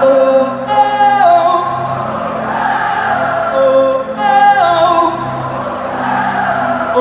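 Live call-and-response: a male singer sings a short falling 'oh, oh, oh' phrase into a microphone about a second in and again around four seconds, and the audience sings it back as a broad crowd chorus between the phrases. A sustained low chord holds underneath.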